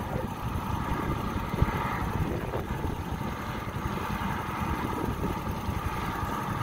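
Helicopter turbine engines running on the ground, a steady whine over a low rumble.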